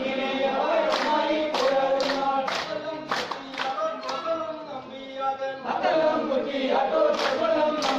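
Poorakkali song sung in unison by a group of men, punctuated by rhythmic hand claps about two a second as they dance.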